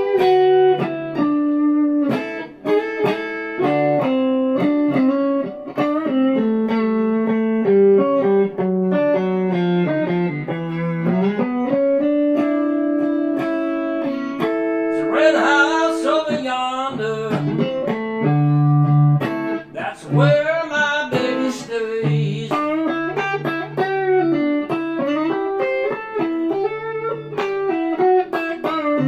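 Solo electric guitar, a Telecaster, playing a slow blues instrumental: picked single-note lines and chords, with string bends sliding the pitch up and down.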